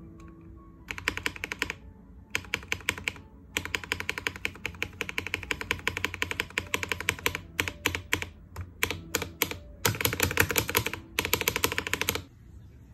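Mechanical keyboard being typed on rapidly in bursts of fast keystroke clicks, with short pauses between runs. Its spacebar stabilizers are Holee-modded and lubed.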